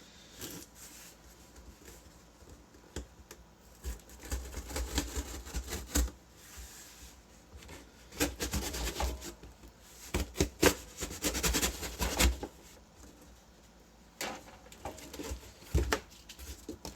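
Hands working at a cardboard shipping box and its packing tape: irregular bouts of rubbing and scraping, with sharp clicks and knocks as the box is handled.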